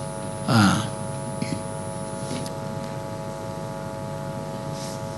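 Steady electrical hum made of several fixed tones, with a brief falling voice sound about half a second in.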